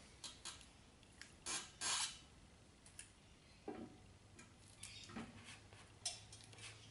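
Faint handling noises as a motorcycle rear wheel is shifted by hand into position against the final drive: scattered short scrapes and light clicks, the loudest a pair of scrapes about a second and a half in.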